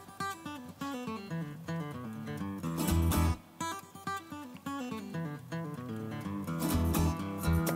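Background music: a plucked acoustic guitar playing a quick run of notes over a bass line.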